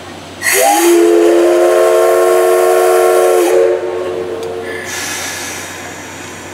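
C11 325 tank steam locomotive's whistle blown once for about three seconds, sliding up in pitch as it opens and then holding steady before cutting off. A softer hiss of steam follows.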